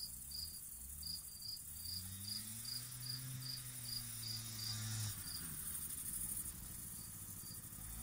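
A cricket chirping steadily, about two or three chirps a second, over the low hum of a 50cc scooter engine, which rises and falls in pitch and then cuts off about five seconds in.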